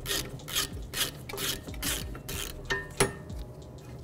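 Ratchet wrench cranked back and forth with a socket, a rasping burst of clicks about twice a second, as a caliper bracket bolt loaded with thread locker is backed out. A single sharp metal click about three seconds in.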